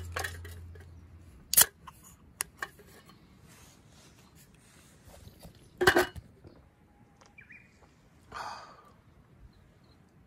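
Aluminium drink can opened by its ring-pull: small tab clicks, then a sharp crack about a second and a half in, and a couple more light clicks after it. A louder, broader knock comes near six seconds.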